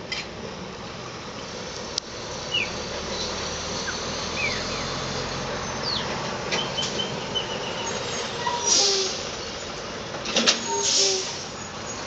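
Chopi blackbirds bathing in a can of water: a few short chirps, then two bursts of splashing and wing-flapping near the end, over a steady background hum.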